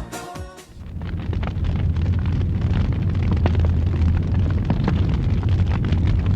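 A huge wooden bonfire burning: a steady low roar with frequent sharp crackles and pops. It starts just after background dance music cuts off, under a second in.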